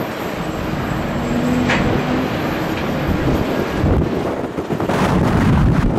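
Jet airliner's engines running, a steady heavy rumble and hiss that grows louder over the last second or two.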